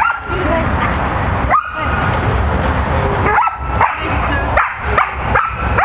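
Dog barking in short, high yelping barks: one about a second and a half in, then a quick run of them, two or three a second, from about three seconds in.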